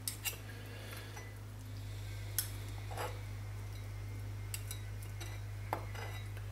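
A handful of scattered light clicks and taps of a small kitchen knife and metal tongs against a plastic cutting board while cutting out a boiled octopus's eyes, over a steady low hum.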